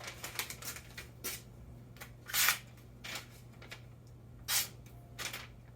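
A freshly sharpened Japanese kitchen knife slicing through paper in a few short swishes, a second or two apart, as a test of its edge.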